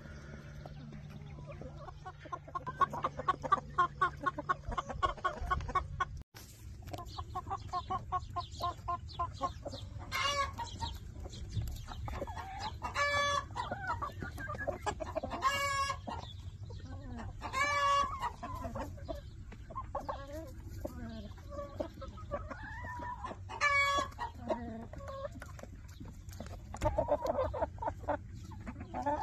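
Several chickens clucking while they feed, with a quick run of clucks in the first few seconds, then louder drawn-out calls every few seconds from about ten seconds in.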